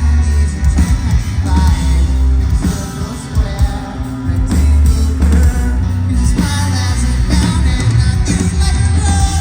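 Live rock band playing at full volume, with heavy bass and drums under guitars and a lead singer's voice. The singing comes up stronger about two-thirds of the way in.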